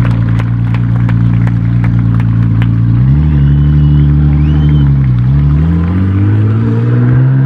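Tuned Nissan GT-R R35's twin-turbo V6 running loudly at a steady idle with sharp clicks over it, then revving up about three seconds in, dipping briefly near five seconds and climbing again.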